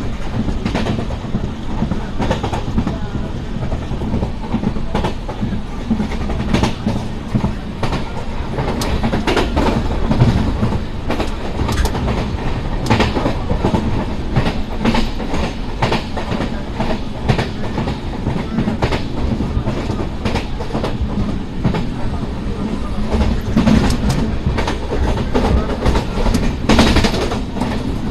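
Sinhagad Express passenger coach running at speed, heard from its window: a steady rumble of wheels on rail with frequent, uneven clicks as the wheels pass over rail joints.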